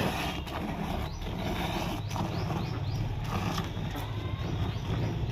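Cow being milked by hand into a steel pot: irregular squirts of milk hitting the pot, roughly one a second, over a steady low hum. Faint bird chirps can be heard.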